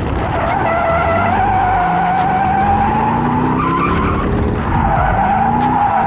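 A car drifting: its tires squeal in a long, wavering tone while the engine revs climb and fall. The squeal breaks off briefly about four seconds in, then picks up again.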